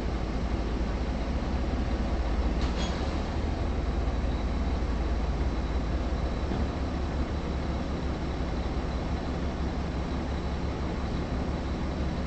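Steady low rumble of a police patrol car's engine and road noise heard inside the cabin, with a faint high whine throughout and a single click about three seconds in.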